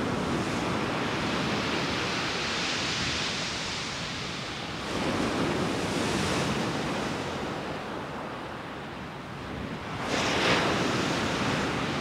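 Rough sea surf breaking and washing on a shingle beach, with a swell of surf about five seconds in and a louder one about ten seconds in. Wind rumbles on the microphone underneath.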